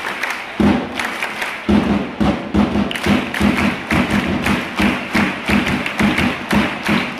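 Supporters' big cheering drum with the crowd chanting along: a couple of single beats, then a steady beat about twice a second from about two seconds in.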